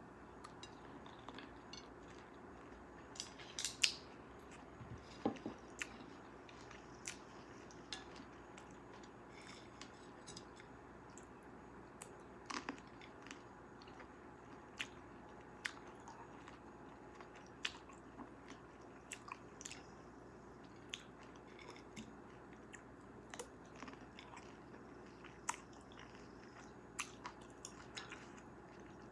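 Close-miked mouth sounds of someone eating cherries: biting into the fruit and chewing, with irregular wet clicks and smacks, a cluster of them about four seconds in being the loudest.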